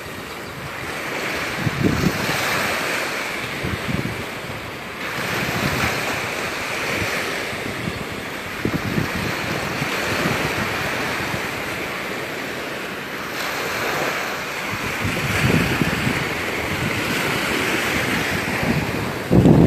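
Gulf of Mexico surf washing onto the beach in swells that rise and ease every few seconds, with wind gusting against the microphone.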